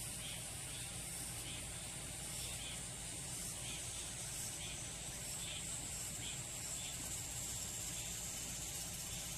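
Insects buzzing steadily in a high-pitched drone, with faint short chirps repeating about twice a second.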